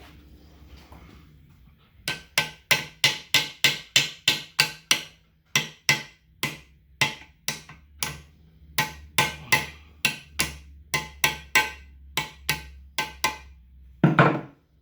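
A hammer taps repeatedly on the metal housing of a Cub Cadet 70 rear end, about three ringing strikes a second, to seat and line up the part during reassembly. It closes with one heavier blow near the end.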